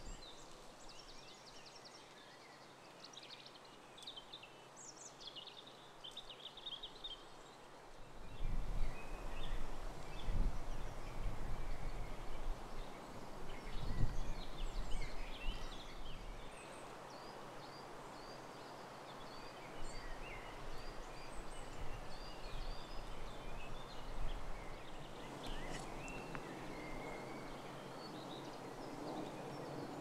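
Wild birds singing and chirping with many short calls over a faint outdoor background. In the middle there is a louder stretch of rustling and low thuds.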